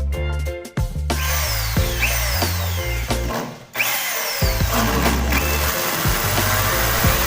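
Background music with a bass line stepping between notes and repeated falling high sweeps, over a dense, steady noise layer that comes in about a second in.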